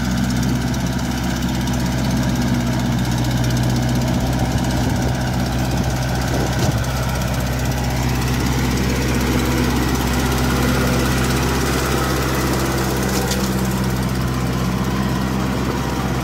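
Kubota L4508 tractor's diesel engine running at a steady pitch as the tractor drives through deep paddy-field mud.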